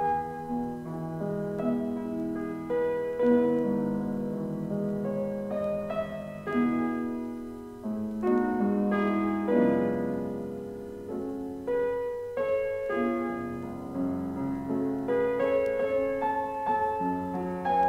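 Solo piano playing the slow introduction to an art song, entering suddenly out of the quiet gap between tracks of a vinyl record; the soprano has not yet come in.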